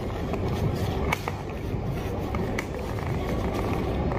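Scattered light clicks and taps over a steady low background rumble.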